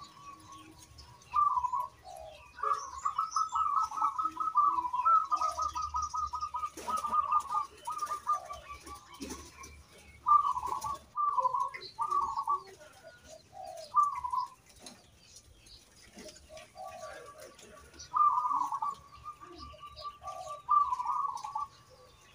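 Zebra dove (perkutut) singing: repeated phrases of low coos and fast trilled runs at one pitch, with short pauses between phrases and longer trills about three seconds in and again near the end.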